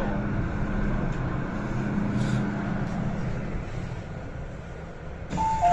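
MTR M-train electric multiple unit running in and braking to a stop, its low rumble and hum dying away. Just before the end, a two-note chime begins as the train comes to rest at the platform.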